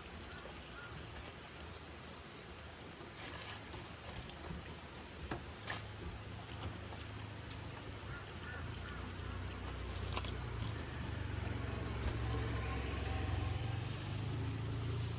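Steady high insect drone, with a low engine-like rumble that builds from about six seconds in and a few faint clicks.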